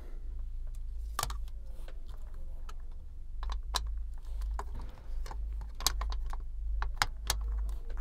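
Plastic cable management bar being fitted onto a keystone patch panel: a dozen or so sharp, scattered clicks and taps of plastic on the panel as it is pressed into place, over a steady low hum.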